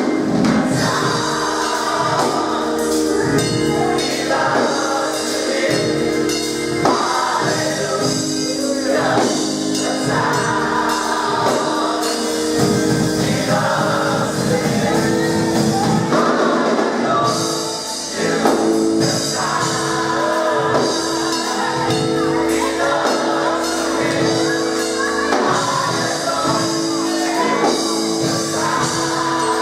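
Mass gospel choir singing with band accompaniment: held chords under moving vocal lines, with a steady beat of percussion strokes.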